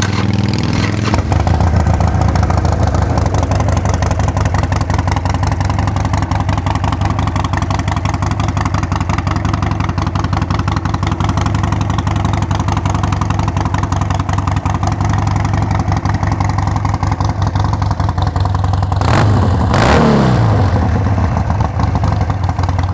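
2012 Harley-Davidson Sportster 1200 Custom's air-cooled 1200 cc V-twin idling steadily through upgraded mufflers, with one short throttle blip near the end whose pitch rises and falls back to idle.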